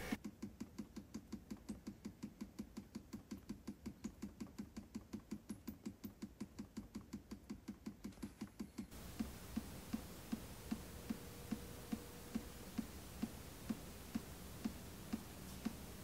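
Water dripping from the outlet of an opened heat pump antifreeze valve: faint, even little taps at about four or five a second, slowing to about two a second about halfway through. The valve has opened on near-freezing water.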